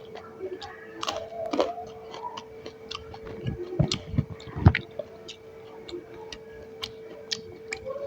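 Close-miked eating: chewing with many small wet mouth clicks and smacks, and a few louder dull thumps about four seconds in, over a steady hum.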